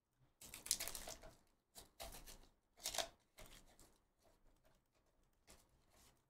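Plastic wrapper on a sealed trading-card pack crinkling and tearing as it is pulled open by hand: a string of short rustling noises over the first four seconds, then a few faint ones.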